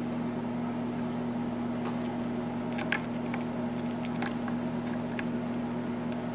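Faint, scattered clicks of a lock pick and tension wrench working the pins of a pin-tumbler lock, a few ticks a couple of seconds apart, over a steady low electrical hum.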